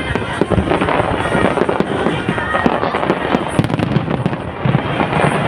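Fireworks display going off in a dense, continuous barrage of bangs and crackles, many shells bursting in quick succession.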